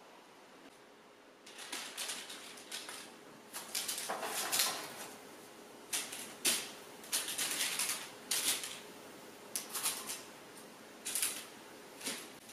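Hands handling crisp baked cookies over a parchment-lined baking tray: a run of short, irregular crackles and clicks of cookie and paper starting about a second and a half in.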